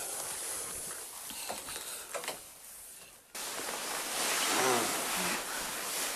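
Soft ticks and rustling over a faint hiss that fades down. About three seconds in, the sound cuts abruptly to a louder steady hiss, with a brief soft murmur of a voice.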